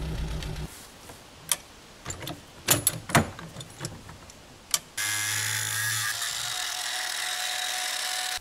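An idling engine cuts off under a second in, followed by a few scattered sharp clicks and knocks. About five seconds in, a steady hiss with a low hum starts abruptly.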